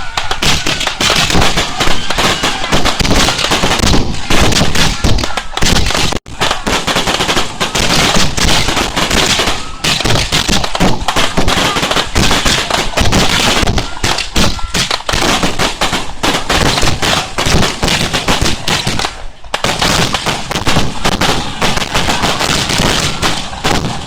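A rapid, near-continuous barrage of fireworks: shells bursting and crackling in quick succession, with a momentary break about six seconds in.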